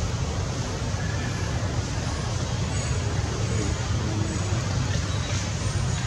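Steady low rumble with an even hiss over it, outdoor background noise with no distinct events.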